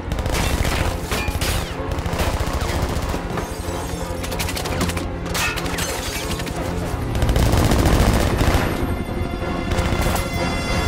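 Sustained automatic gunfire, a long fusillade of rapid shots. A heavier low rumble swells about seven seconds in.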